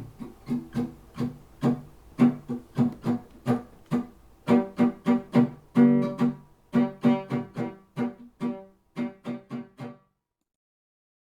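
Solo acoustic guitar picking single plucked notes in a steady pattern, about three a second: the closing bars of a song. The notes stop about ten seconds in.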